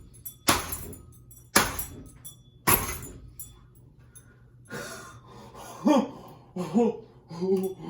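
Three hard blows striking a ceiling fan about a second apart, each a sharp crack with a brief ringing tail, then a man's short vocal sounds near the end.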